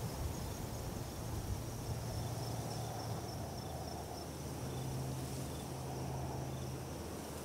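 Insects chirping in a fast, steady pulsed trill, over a soft hiss of breeze through dry grass, with a low steady hum underneath.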